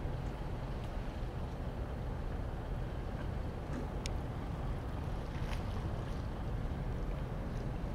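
Fishing boat's diesel engine running with a steady low rumble as the boat motors slowly into the harbour.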